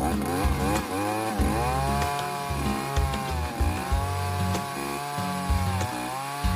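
Gas-powered ice auger running as it bores through lake ice. Its engine pitch sags and recovers several times as the bit loads up in the ice.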